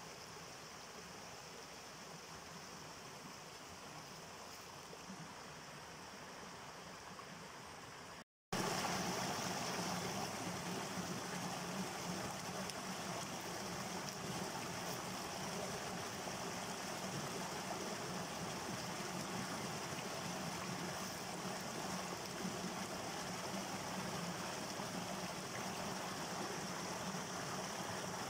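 A small mountain stream rushing and splashing over rocks in a steady wash of water. About eight seconds in it cuts out for a moment and comes back louder, from a small cascade close by.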